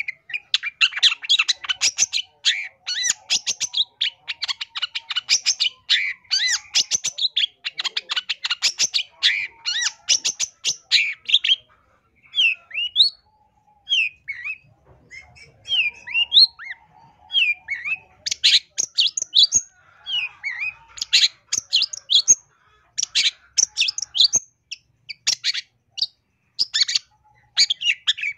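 Long-tailed shrike (cendet) singing. It gives a fast run of scratchy chattering notes for the first eleven seconds or so, then a few separate rising whistled notes, then chattering phrases again. This is the shrike's 'full isian' song, packed with mimicked phrases of other birds.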